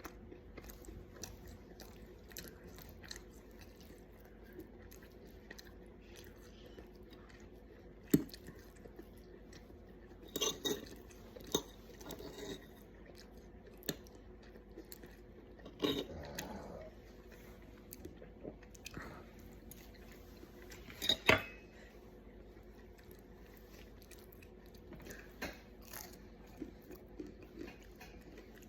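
A person chewing mouthfuls of steak and eggs, with a handful of sharp clinks of cutlery on a plate; the loudest clink comes about two-thirds of the way through.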